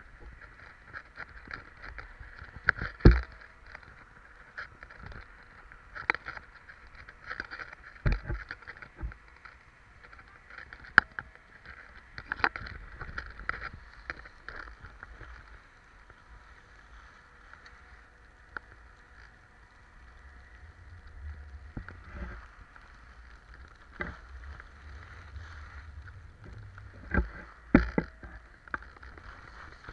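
Skiing descent: a steady hiss of snow scraping under the rider sliding downhill, broken by sharp knocks and bumps, the loudest about three seconds in and near the end. Low wind rumble on the microphone sets in about two-thirds of the way through.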